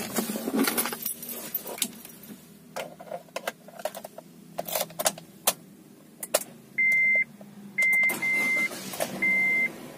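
Car ignition key and keyring clicking and jangling after the engine shuts off, then the dashboard warning chime giving short, high, steady beeps about once a second with the ignition on and the engine stopped.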